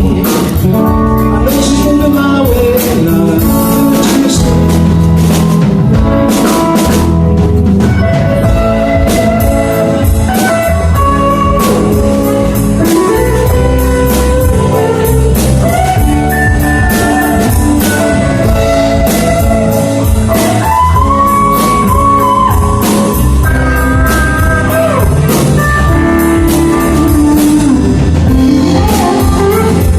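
Live band playing a blues-rock song: drum kit keeping a steady beat under guitar and bass, with a lead line bending between notes over the top.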